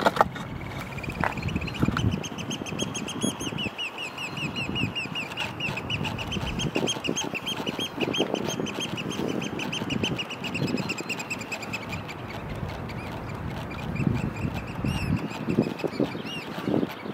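Eurasian oystercatchers giving a long, rapid series of shrill piping calls, about eight to ten notes a second, which trails off about two-thirds of the way through with a few more calls near the end. This is their alarm at an approaching person, heard over wind rumble on the microphone.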